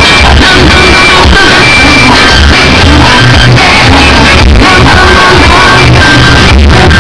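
Music blasting at extreme volume from a car-trunk sound wall of stacked subwoofers and horn tweeters, heavy in bass and near the recording's full-scale level.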